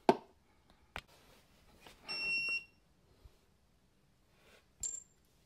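A plastic threadlocker bottle set down on a concrete floor with a sharp knock, and a lighter click about a second later. About two seconds in, a single steady electronic beep lasts about half a second, and a short high chirp comes near the end.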